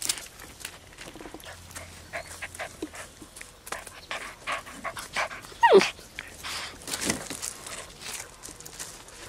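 Eight-week-old puppies scuffling and pattering on gravel, with a single short high yelp that falls sharply in pitch about halfway through, the loudest sound.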